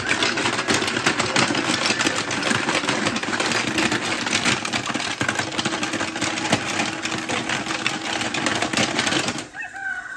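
Plastic baby activity toy shaken and rattled hard, a dense rapid clatter that keeps up and then stops suddenly about nine and a half seconds in.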